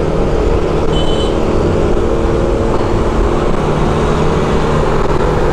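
Yamaha NMAX 155 scooter's single-cylinder engine running steadily while riding at about 40 km/h, speeding up slightly, with low wind rumble on the microphone. A brief high tone sounds about a second in.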